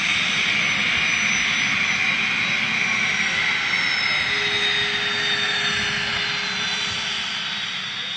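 Small jet aircraft's engines running as it taxis: a steady rush with a high turbine whine that slowly falls in pitch, easing off a little toward the end.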